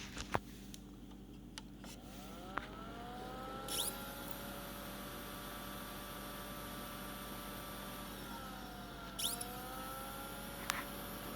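Mitsubishi HC1500 projector's cooling fans spinning up after a click, with a rising whine that settles into a steady whir. About eight seconds in they slow and spin up again, as the projector tries and fails to boot. Several sharp clicks sound along with a low mains hum.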